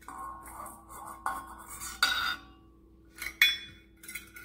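Stainless steel measuring cups clinking and scraping against each other and a metal mixing bowl, a few short knocks, then a sharp clink about three and a half seconds in that leaves a ringing tone.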